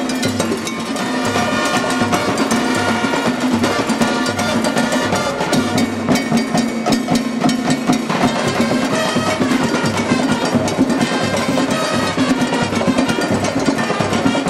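Cuban comparsa music: a percussion band of drums and struck percussion plays a steady, driving conga rhythm, with a pitched melody line over it.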